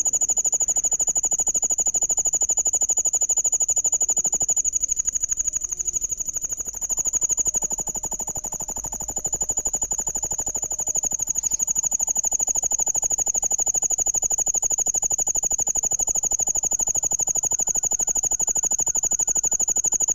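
An insect trilling: a loud, high-pitched, rapidly pulsing trill that runs on without a break, easing off a little for a few seconds about a quarter of the way in.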